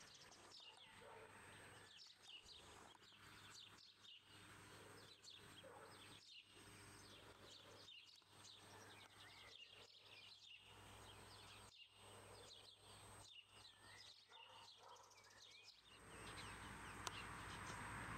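Faint birdsong: many short chirps and trills from small birds, with a steady hiss that grows louder near the end.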